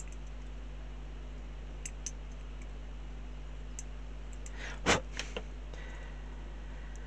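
A few sparse small clicks of plastic model-kit parts being handled and worked by hand, as the holes in a part are enlarged. The sharpest click comes about five seconds in, followed by two lighter ones. A steady low electrical hum runs underneath.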